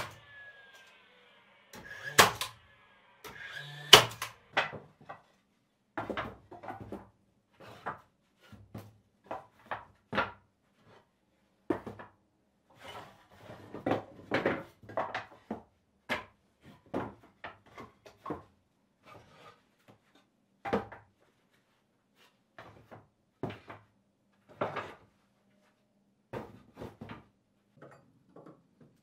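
A cordless drill/driver whirring briefly in the first few seconds, then a long run of irregular wooden knocks, thuds and clatters of boards and tools being handled in a small wooden room.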